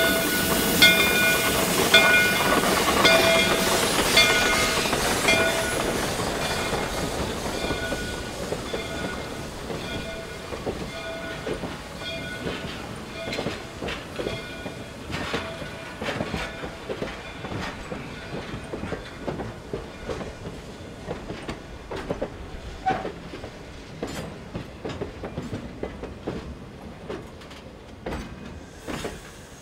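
Steam locomotive passing with hissing steam and a bell ringing in steady strokes, both fading as it draws away. Then the wheels of the trailing cabooses click over the rail joints as they roll by.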